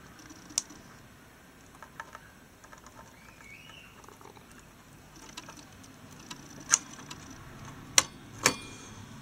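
Intel stock CPU cooler being handled and lined up over the motherboard socket: scattered light plastic clicks and taps, with three sharper clicks near the end as it is set onto the board.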